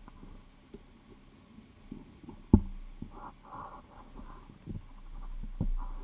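Jumper wires being plugged into a solderless breadboard and handled on a desk, giving small scattered clicks and knocks, with one sharp knock about two and a half seconds in.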